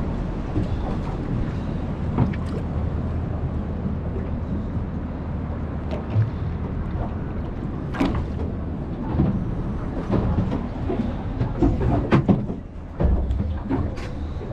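Boat under way: a steady engine drone with water washing along the hull, and a few sharp knocks scattered through.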